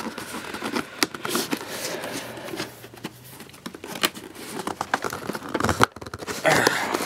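A cardboard product box being handled and its packing tape pulled and torn: crinkling, rustling and many small sharp clicks and scrapes, in irregular bursts.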